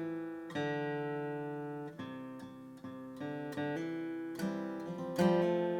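Martin CEO-7 steel-string acoustic guitar played solo. Chords and single notes are picked about every half second to second, each left to ring and fade.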